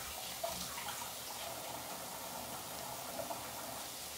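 Kitchen faucet running steadily into a sink while hands are washed under it, with a few small splashes.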